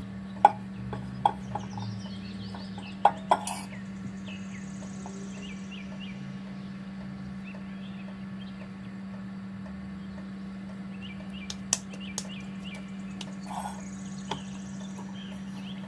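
Hands working a ball of soft bread dough in a stainless-steel mixer bowl: a few scattered knocks and soft squishes against the bowl, over a steady low hum.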